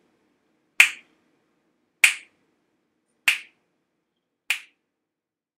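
Sharp snaps on a slow, even beat, about one every 1.2 seconds, four in all, each dying away quickly.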